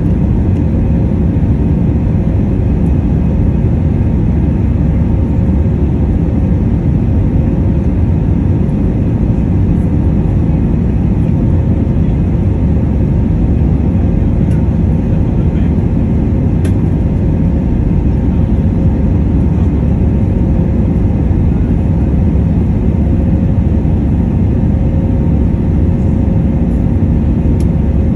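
Airbus A319-112 cabin noise heard from a seat over the wing during the climb after takeoff: the CFM56 turbofans and the airflow make a loud, steady roar, with a faint hum held on a few fixed pitches.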